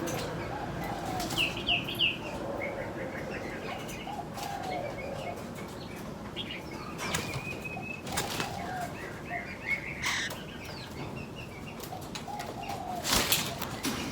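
Aviary birds flapping their wings in several short bursts, the loudest near the end, among scattered chirps and short calls.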